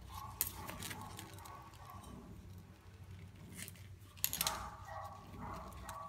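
Quiet handling sounds of gloved hands working double-sided tape and small rubber-mat pieces: soft rustling with a few sharp clicks, the loudest about four seconds in.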